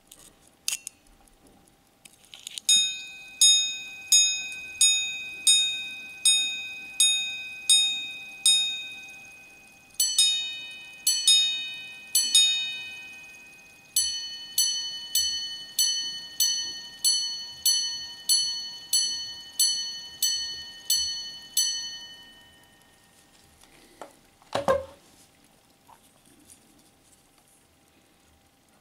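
Volta minute repeater wristwatch striking the time on its two gongs. Nine low strikes give the hours, three high-low ding-dongs give the quarters, and a faster run of about fourteen high strikes gives the minutes, sounding 9:59 as the dial shows. A click at the start as the repeater is set off, and a single knock near the end as the watch is handled.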